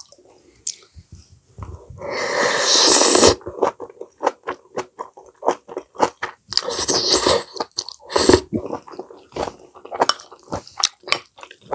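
Close-miked chewing of a person eating a mushroom rice bowl: many short wet mouth clicks and smacks, with two longer loud hissing sounds about two and seven seconds in.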